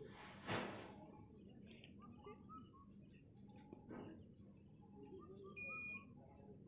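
Steady high trill of crickets in the background, with one sharp click about half a second in.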